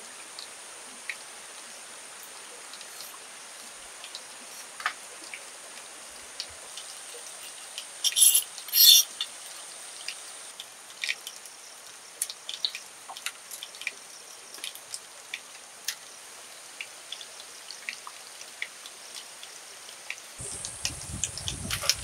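Thin split bamboo strips being handled and worked: scattered small clicks and rustles, with two short sharp rasps about eight and nine seconds in, over a steady high hiss. A low rumble comes in near the end.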